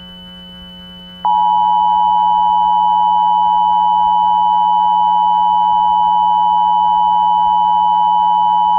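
Emergency Alert System two-tone attention signal: two steady tones sounding together, starting about a second in and holding unchanged for about eight seconds. This is the alarm that introduces an emergency alert message. A faint steady high tone and a low hum sit beneath it.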